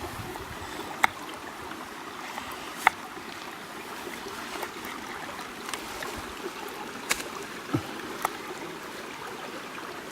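A stream flowing steadily, with a few small sharp knocks scattered through it.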